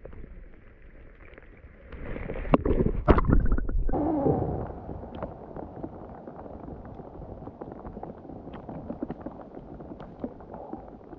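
Water splashing and gurgling for about two seconds, starting about two seconds in, as a caught perch is let go over the side of a kayak. Afterwards a steady patter of small ticks from rain falling on and around the kayak.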